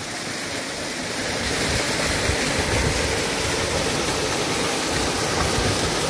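Water of a waterfall and its creek rushing over rocks, a steady, even hiss.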